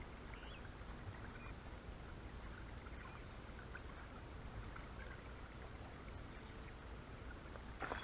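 Quiet outdoor ambience: a low steady rumble with faint, scattered bird chirps. Right at the end a sudden loud rush of noise cuts in.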